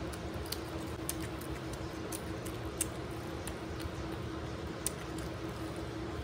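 Fingers mashing and mixing rice and chicken on a banana leaf: soft squishes with a few scattered sharp little clicks, over a steady low hum.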